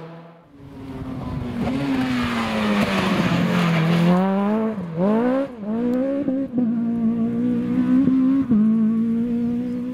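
A Citroën Saxo rally car's engine. Its revs fall as it slows into a corner, with tyre noise. Then it accelerates hard, the revs climbing in quick steps through upshifts and holding high as it pulls away.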